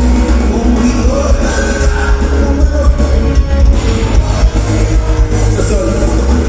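Loud live band music with heavy bass and a singing voice.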